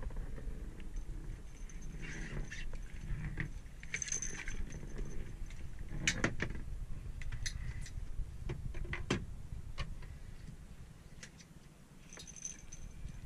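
Metal fishing tackle, a wire leader with its snaps and swivels, clinking and jingling as it is handled, with scattered sharp clicks and knocks on the boat's deck over a low steady rumble.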